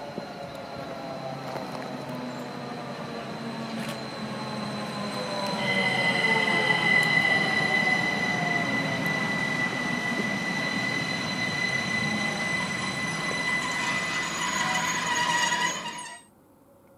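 Rhaetian Railway ABe 8/12 Allegra electric railcar train pulling into the station, its electric drive's whine falling in pitch as it slows. A steady high squeal joins about six seconds in as the cars roll past, and the sound cuts off suddenly near the end.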